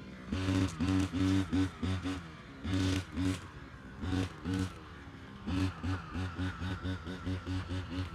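Brush cutter's small engine revving up in short bursts of throttle and dropping back between them, as it cuts grass and weeds. The bursts come shorter and quicker, about three a second, from about halfway through.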